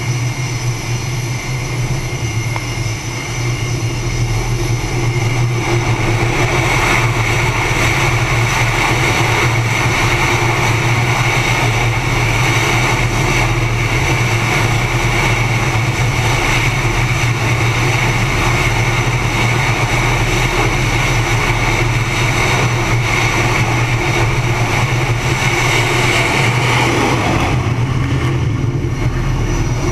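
Carrier jet aircraft engines running at high power on the flight deck: a loud, steady high whine over a deep hum. It grows louder about four seconds in, and near the end it surges briefly before the high whine falls away.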